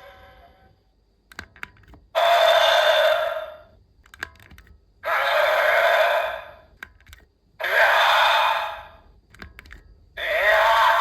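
Toy Gil Arc Cube playing electronic sound effects through its small built-in speaker, four short effects in a row, each set off by a sharp click of its button.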